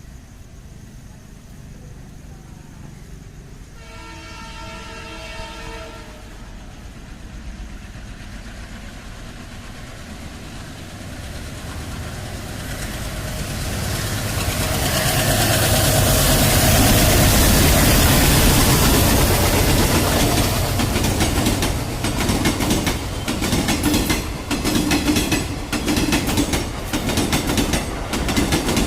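A train sounding its horn once, briefly, about four seconds in, then drawing closer and passing. The rumble builds to a peak midway, followed by a steady clickety-clack of wheels over the rail joints.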